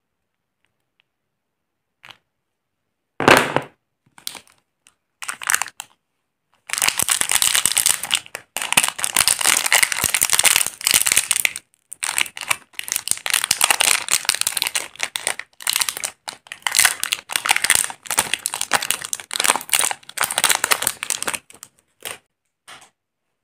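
Plastic wrapper of a Cadbury Dairy Milk Crispello bar crinkling and tearing as it is opened by hand, in a long run of rustling bursts from about 7 s to 21 s. About 3 s in there is one short, loud knock.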